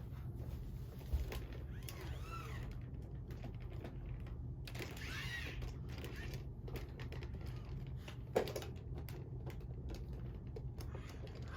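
Light clicking and rustling of packaging and plastic being handled while a robot toy is unpacked, with a sharper knock about eight seconds in, over a steady low hum.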